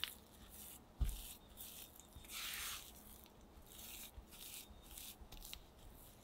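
Spatula scraping and cutting crumbly butter-and-flour cookie dough against a glass bowl in a series of short strokes, with one longer scrape near the middle. A single loud thump comes about a second in.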